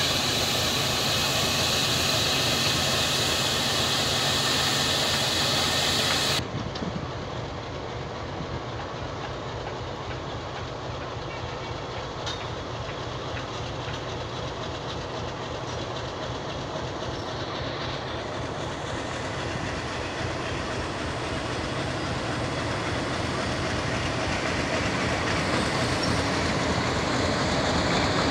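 Steam hissing loudly from a standing HG/S steam locomotive, cut off suddenly about six seconds in. Then a diesel locomotive hauling the steam engine approaches along the track, its engine and wheels on the rails growing steadily louder as it nears.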